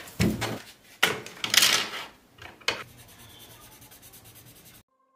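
Hand rubbing and brushing across drawing paper on a clipboard in four short scratchy strokes, then a fainter steady rasp that cuts off suddenly near the end.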